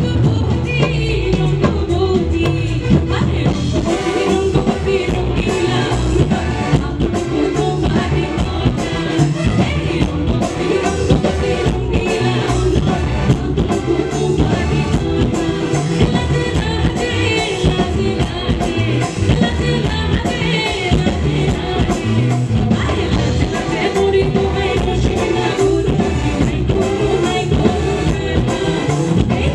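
A woman singing a song into a microphone with a live band behind her. A drum kit keeps a steady beat under the vocal.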